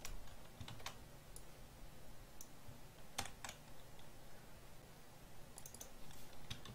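A few faint, scattered computer keyboard keystrokes and clicks as a block of code is copied and pasted, with a short run of them near the end.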